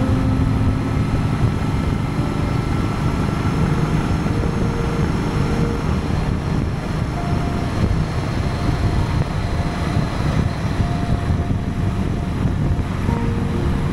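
Honda Gold Wing motorcycle with sidecar cruising at a steady speed: steady engine and riding noise, heaviest in the low range.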